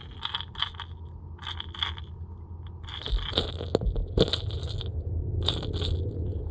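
Underwater, groups of sharp clicks from a Megabass Vision 110+1 jerkbait's rattling internal weights as it is jerked and paused, over a steady low hum.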